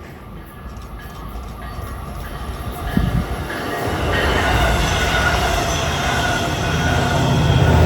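Long Island Rail Road train approaching and passing, getting steadily louder, with rumbling wheel and rail noise and a faint steady whine. There is a single thump about three seconds in.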